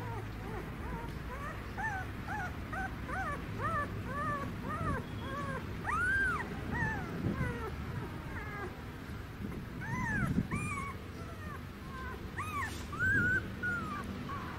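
Young puppy whimpering and yelping in a long string of short, high, arching cries, several a second, while mangoworm larvae are being squeezed out of its skin.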